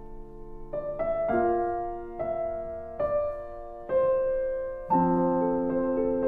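Background piano music: slow single notes and chords struck about once a second, each fading away, growing fuller near the end.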